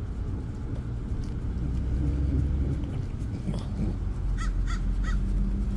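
A dog lapping whipped cream (a Puppuccino) from a small paper cup, over the low steady rumble of a car. About four and a half seconds in come three quick, high chirps in a row.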